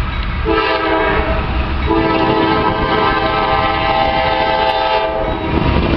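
Locomotive air horn of an approaching freight train sounding a short blast, then a longer one of about three seconds, at a grade crossing. A low rumble runs underneath.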